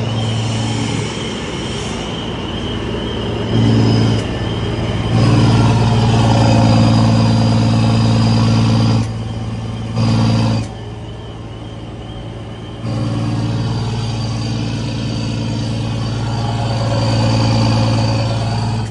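Scania truck's diesel engine running with a steady low rumble through its newly fitted exhaust diffuser. The loudness jumps up and drops back abruptly several times, with the longest loud stretch a few seconds in and another near the end.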